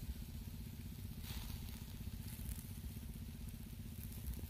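Faint sizzling and crackling of whole chickens grilling over charcoal, under a louder, steady low rumble.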